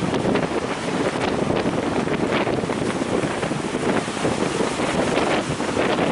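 Strong wind buffeting the microphone over the steady rush of heavy surf, with a few brief crackles from the wind.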